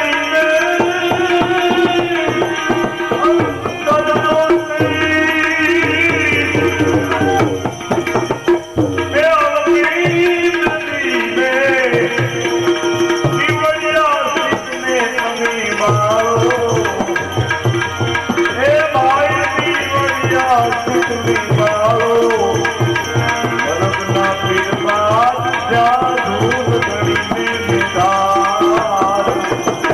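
Devotional bhajan music: tabla playing a steady rhythm under a melody that glides up and down.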